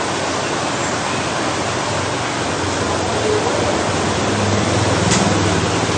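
Steady rushing of water circulating in a reef aquarium, with a faint low hum in the middle.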